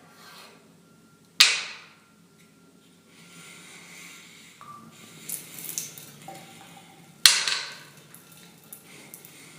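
Wooden pieces knocking together: two sharp knocks, about a second and a half in and again about six seconds later, each ringing out briefly, with lighter clicks and handling noise between them.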